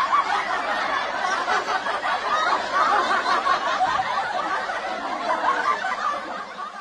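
Laughter from many people at once, a dense run of snickering and chuckling that eases off a little near the end.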